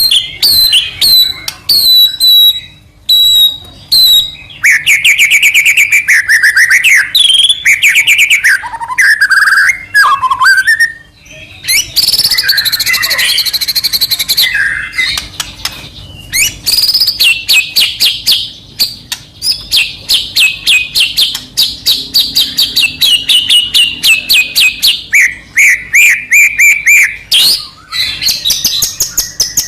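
White-rumped shama (murai batu) singing loudly and continuously: short clear repeated notes, then sliding warbled phrases, a brief harsh chattering burst, and long runs of rapid, evenly spaced high notes.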